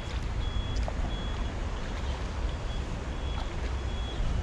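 A short, high-pitched beep repeating about once a second, like a vehicle's reversing alarm, over a steady low rumble.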